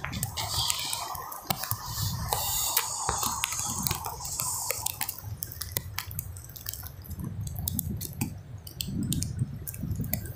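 Rough, muddy surf washing on the beach with wind buffeting the microphone in an uneven low rumble. Many sharp, drip-like ticks are scattered throughout.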